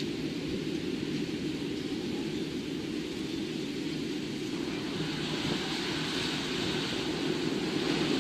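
Storm noise: a steady rushing of wind and rain that grows slightly louder and hissier after about five seconds.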